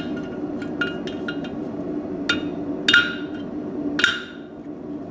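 Blacksmith's hand hammer striking a red-hot iron scroll on the anvil to tighten the curl: a few light taps in the first second and a half, then three heavier ringing blows about two, three and four seconds in. A steady low hum runs underneath.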